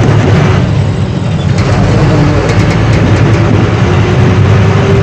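Ashok Leyland tanker lorry's diesel engine running under way, a loud steady low rumble with road and cab noise, heard from inside the cab.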